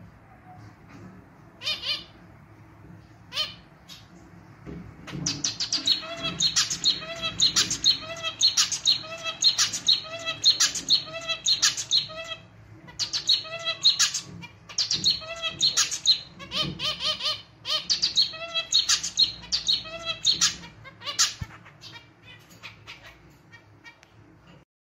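Male zebra finch singing: a few single calls, then two long, rhythmic runs of the same repeated notes, a song that sounds like a small, somewhat out-of-tune clarinet.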